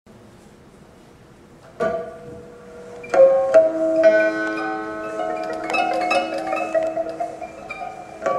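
Four pipas (Chinese lutes) opening a piece. After nearly two seconds of quiet, one plucked note sounds, and from about three seconds in a run of plucked notes follows, their tones ringing on over one another.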